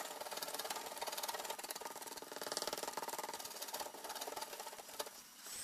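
A small motor running with a rapid, even clatter that drops away near the end.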